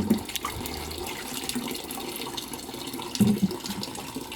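Water running or splashing steadily, with two dull thumps, one at the start and another about three seconds in.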